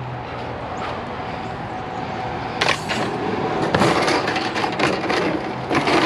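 Scrap items being handled and shifted in a curbside junk pile, with clattering and knocking starting about two and a half seconds in, over a steady background hiss.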